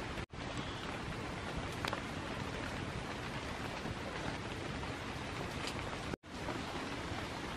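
Steady rain falling on dense forest foliage, an even hiss with a few faint drop ticks; the sound cuts out for an instant twice.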